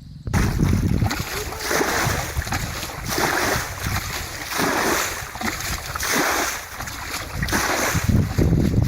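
Water sloshing and splashing in repeated swells about every second and a half, with a low wind rumble on the microphone. It starts abruptly just after the beginning.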